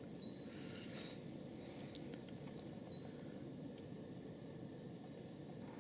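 Short, high, downward-sliding bird chirps, three in all a few seconds apart, over a faint steady low background rumble.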